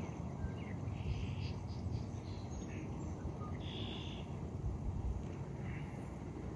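Wind on the microphone making a steady low rumble, with scattered short bird chirps and calls over it.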